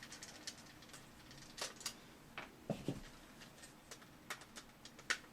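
Phillips screwdriver backing small loose screws out of a plastic magazine shell: faint, irregular clicks and ticks of metal on plastic.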